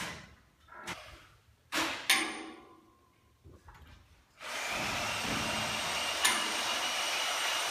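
Construction work on sprinkler pipe: a few sharp clanks that ring briefly, then from about four seconds in a power tool runs steadily, with one knock near the end.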